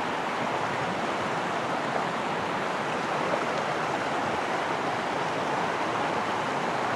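Mountain waterfall cascading down a rock face, a steady rush of falling water.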